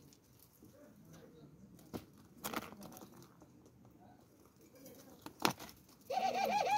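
Doves shuffling and flapping in dry straw, with a few sharp knocks, the loudest about five and a half seconds in. Near the end a dove gives a loud, wavering call that rises and falls several times in quick succession.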